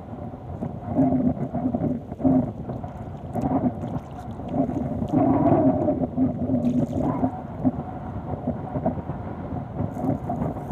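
Wind buffeting the microphone: a low, uneven rumble that swells in gusts and falls back.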